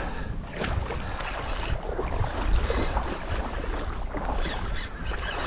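Wind buffeting the microphone with a steady low rumble, over water sloshing and splashing in shallow water around a wading angler.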